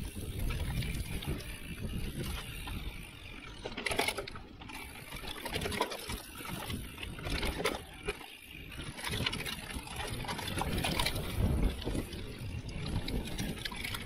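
Mountain bike running fast down a dirt forest trail, heard from a handlebar-mounted action camera: tyres rolling over dirt and roots and the bike rattling over bumps, with a low rumble of wind on the microphone.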